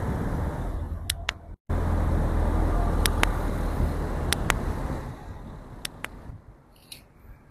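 Low rumble of wind buffeting a handheld microphone, with a few sharp clicks in pairs; it fades away in the last couple of seconds.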